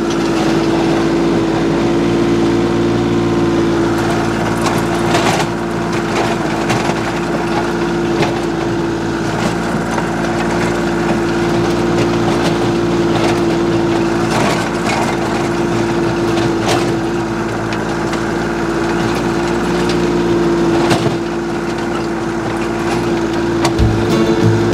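Kioti compact tractor's diesel engine running steadily under load while driving a Terra-Force three-point rotary tiller through rocky clay soil, with scattered short knocks throughout.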